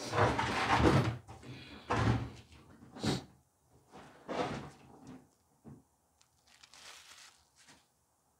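Handling noise: a run of short rustles, scrapes and knocks, the longest and loudest in the first second, then about six briefer ones spaced a second or so apart.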